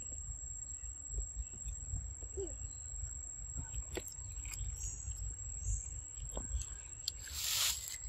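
Outdoor ambience: a steady high-pitched insect drone over a low wind rumble, with a few faint clicks and a short rustle near the end.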